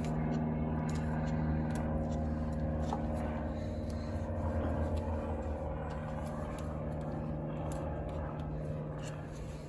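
A steady low machine hum, with faint light clicks and scrapes of a small metal tool working around the rim of the old front hub seal of a Unimog as it is pried out.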